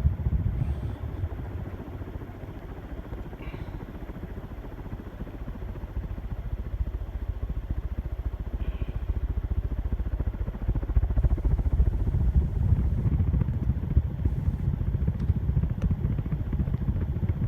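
Hunter Original ceiling fan with a shaded-pole motor running on high, its blades pushing a strong draught that buffets the microphone with a low rushing rumble. The rumble grows louder about halfway through.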